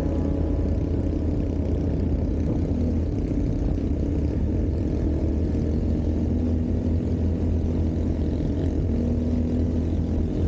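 ATV engine running steadily with a constant low rumble.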